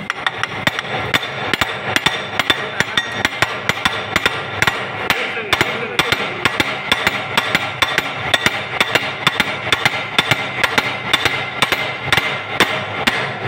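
A cloth-wrapped hammer taps a bearing down onto a pump shaft in a fast, steady series of blows, about three to four a second, each with a short metallic ring.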